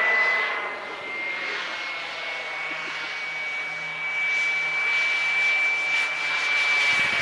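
Homebuilt Wren MW54 model jet turbine on a radio-controlled jet flying overhead: a steady high whine over a rushing noise. The whine creeps up slightly in pitch and drops again near the end.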